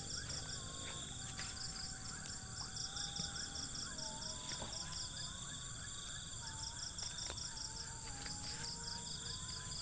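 Crickets and other insects chirping in fast, even pulses over a steady high-pitched insect hiss. A faint, thin wavering call runs underneath.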